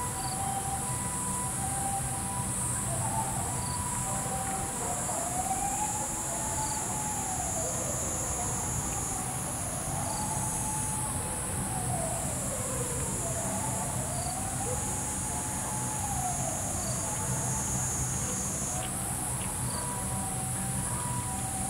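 Insects shrilling steadily in a high band, with distant emergency-vehicle sirens: one alternates between two notes in a hi-lo pattern, and another slowly rises and falls about every four seconds. A low rumble sits underneath.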